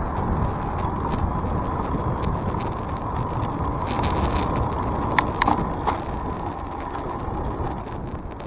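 Steady wind and road noise from riding a bicycle, with a few sharp clicks or rattles about five to six seconds in.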